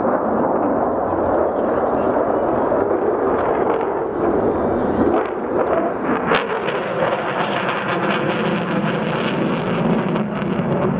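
F-15 fighter's twin jet engines running loud through a display manoeuvre, a dense steady rumble with a sharp crack about six seconds in and fainter crackles after it. The afterburners are lit near the end.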